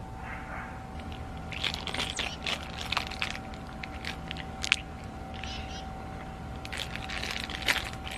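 A child chewing and crunching food close to the microphone: a run of short, irregular crackles, with a faint steady hum underneath.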